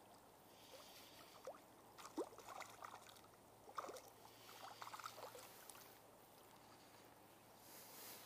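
Small asp splashing at the water surface while being reeled in on light spinning tackle: a string of short, faint splashes over a few seconds.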